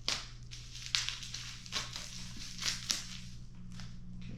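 Handling noise during assembly: about five short crackling clicks and rustles, spread unevenly, over a steady low hum.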